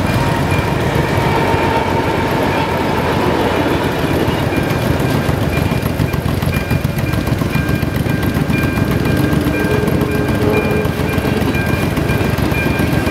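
Level-crossing electronic warning bell (ZV-02) ringing a steady, repeating high chime, over the low rumble of a passenger train of blue České dráhy coaches coming through the crossing.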